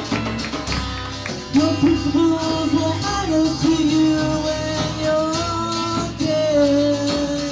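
Live rock band playing: guitar, bass and drums, with a long held, wavering melody line over them from about a second and a half in.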